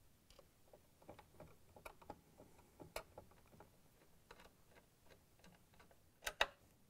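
Faint, irregular ticking and clicking of a Phillips screwdriver turning screws into a stand mixer's cover, with two sharper clicks close together near the end.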